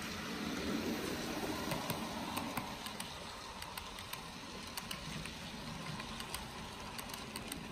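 HO scale model freight train rolling past: a steady rumble of the diesel locomotive and cars on the track, with scattered light clicks from the wheels. It is loudest in the first couple of seconds as the locomotive goes by, then eases a little as the tank cars and caboose follow.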